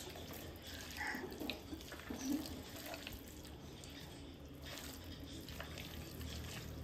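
Soft, wet squelching of a hand kneading raw chicken pieces in a thick kebab marinade in a glass bowl.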